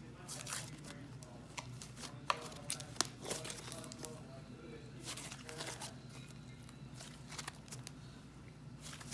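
Slime being squished and pulled by hand, making irregular crackly clicks and small pops.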